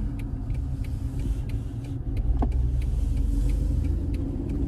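Steady low road and engine rumble heard inside the cabin of a Mercedes-Benz E350 (W211) sedan while it is being driven.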